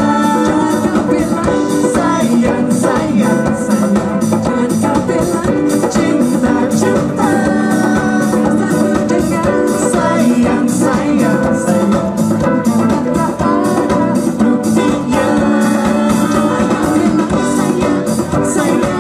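Live band playing an upbeat song: electric guitars, bass, keyboard and drum kit keeping a steady beat, with singing.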